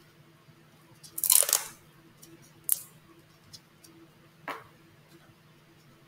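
Gloved hands handling sterile gauze and its packaging: a rustling tear about a second in, a sharp click near the middle, and a shorter rustle a little later.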